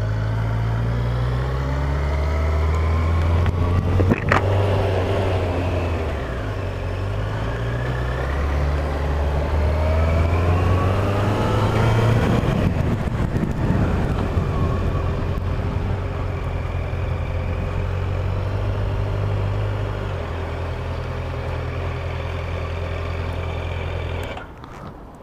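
Yamaha FZ8's inline-four engine accelerating through the gears, its pitch climbing and dropping back at each upshift, then running steadily at cruise. Near the end the engine sound falls off sharply.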